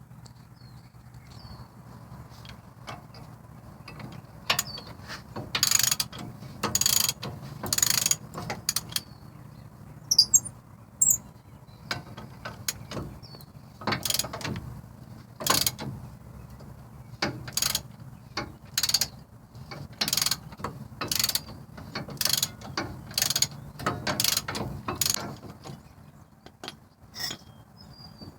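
Ratchet wrench clicking in repeated short strokes, about one a second, starting about four seconds in, as the brake caliper bracket bolts are backed out.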